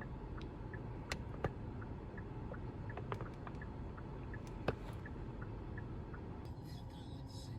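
Quiet background ambience: a steady low rumble and hiss with a few soft clicks, the loudest about four and a half seconds in, and scattered faint short high blips.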